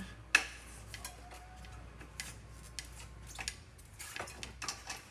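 Metal clicks and clinks from a bicycle chain and hub-motor drive wheel being worked into place on the bike frame, with one sharp clack about a third of a second in.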